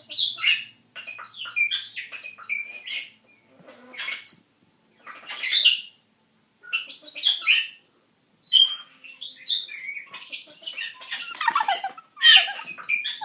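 Pet parrot chirping and squawking in short, rapid bursts of high calls with brief pauses between them.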